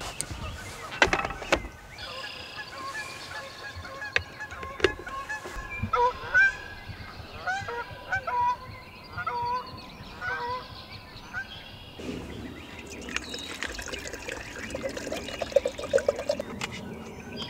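Geese honking: a long run of short, repeated calls that stops about twelve seconds in. A few sharp knocks come in the first few seconds.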